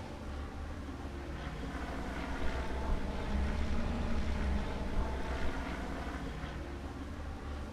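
Small propeller plane's engine droning overhead, its pitch bending gently up and back down around the middle as it passes. Low wind rumble on the microphone underneath.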